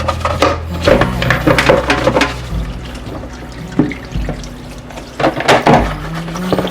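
Water running and splashing, as from a tap, in two louder spells, over soft background music.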